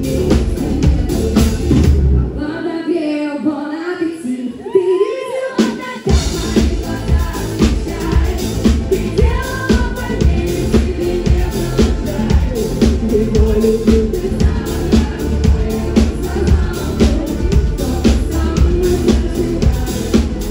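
Live pop band with a female lead singer: drums, bass, guitar and keyboards under her vocal. About two seconds in, the drums and bass drop out for a few seconds, leaving her voice over light accompaniment, then the full band comes back in with a steady beat.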